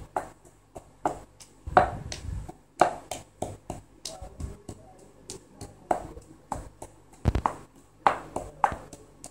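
Long wooden pestle pounding almonds and other nuts in a stone mortar: short, sharp knocks at an uneven beat of about two a second as the nuts are crushed for sardai.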